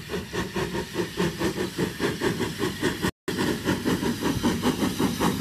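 Heritage steam-hauled passenger train running, heard from on board: a steady, even beat of about four to five strokes a second over hiss and rumble. The sound drops out for a moment about three seconds in.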